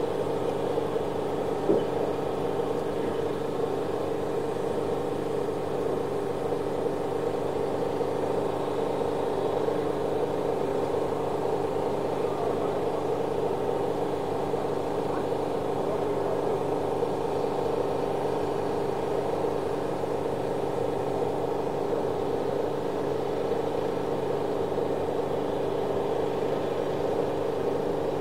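A small motor or engine running steadily with an even hum. One brief click comes about two seconds in.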